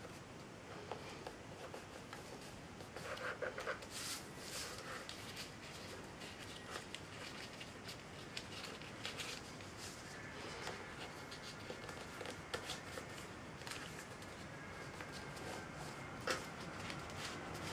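A sheet of printer paper being folded and creased by hand on a tabletop: soft rustling with scattered sharp paper crackles. A cluster of louder crinkles comes about three to four seconds in.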